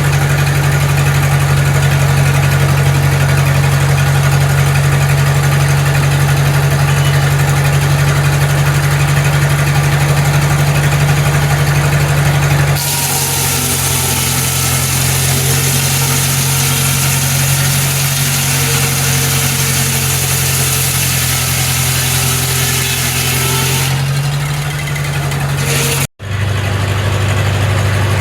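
An engine running steadily at a constant speed. About halfway through, a hiss rises over it for roughly eleven seconds, then it drops away.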